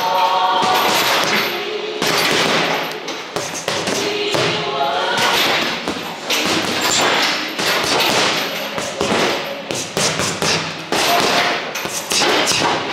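Punches landing on a heavy punching bag: a run of irregular thuds, coming fastest in the second half.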